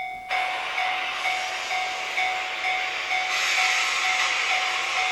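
Dubbed sound effect of a freight train running past, with a level-crossing warning bell dinging about twice a second throughout. The train noise comes in under the bell about a third of a second in and gets louder around three seconds in.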